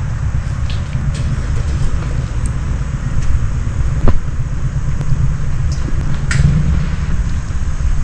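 Wind buffeting the microphone as a bicycle rolls along a paved path, a steady low rumble with a few light clicks and one sharper click about four seconds in.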